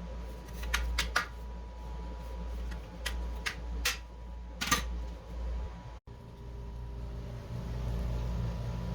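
Philips SpeedPro cordless stick vacuum running with a steady hum and a thin, high, even whine. Several sharp plastic-like clicks come in the first five seconds; the sound cuts off abruptly about six seconds in and the hum resumes.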